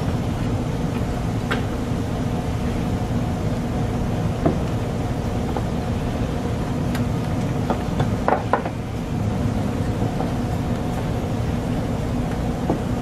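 Steady low mechanical hum of the restaurant's background machinery, with a few faint light clicks, a small cluster of them a little past the middle.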